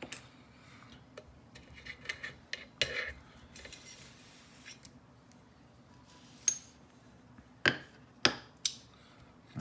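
Small metal parts clicking and clinking as a picked padlock and its tools are handled to start taking the lock apart. Scattered light clicks, with two sharper clacks about half a second apart in the second half.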